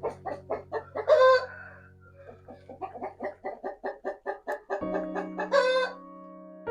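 Chicken clucking in quick runs of short notes, each run ending in a loud, drawn-out squawk, twice. Soft background music with held notes plays underneath.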